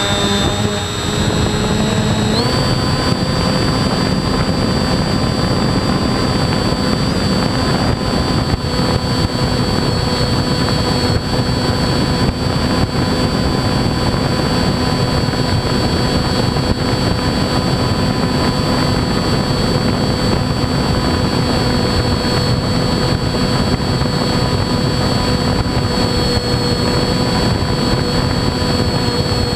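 RC airplane's motor and propeller running at a high, steady throttle, heard from a camera mounted on the plane. The pitch steps up once about two seconds in and then holds, dipping slightly near the end.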